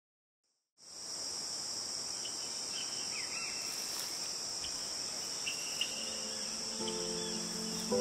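Steady high chirring of insects, starting about a second in, with a few short bird chirps above it. Soft sustained music chords come in near the end.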